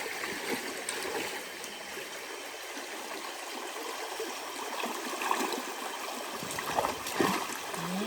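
Shallow forest creek running and trickling over stones, with a few brief louder sounds about five to seven seconds in.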